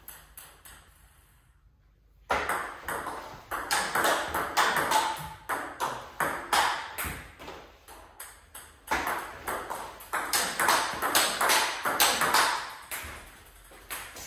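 Table tennis topspin loop rally: the ball is struck back and forth by paddles, one faced with Butterfly Dignics 09C rubber, and bounces on the table in a quick run of sharp clicks. The rally starts about two seconds in and stops near the end.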